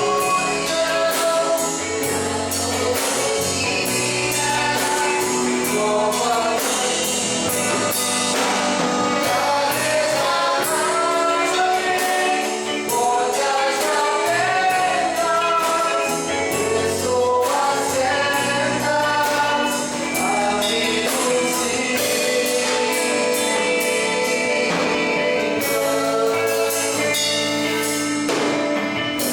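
Gospel worship song sung by a group of voices over band accompaniment, with a drum beat running through.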